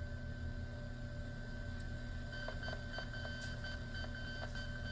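Steady interfering tones with a low hum coming through a Yaesu FT-891 transceiver's speaker on a 10-metre FM repeater channel. A second, higher pair of tones joins about halfway through, with a few faint clicks. It is a big loud tone that the operator suspects is another repeater, or someone jamming one.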